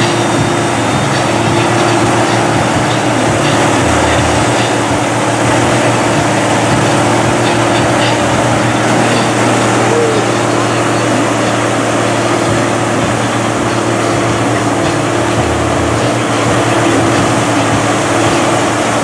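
First-generation Dodge truck's 5.9-litre 12-valve Cummins inline-six diesel running loud at steady revs, the engine note holding even throughout.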